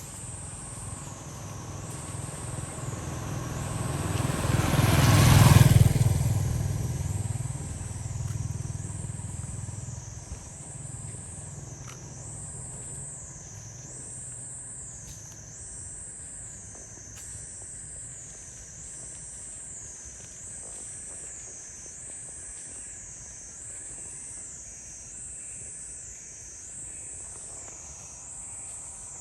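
A motor vehicle passes: its engine grows louder over the first few seconds, is loudest about five seconds in, then fades away. Insects keep up a high, even pulsing chirp that swells and falls about every second and a half.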